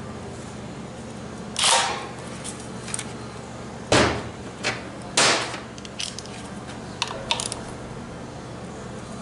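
Irregular knocks and clicks of hand tools and metal transmission parts being handled and set down, with three louder clanks among several lighter clicks.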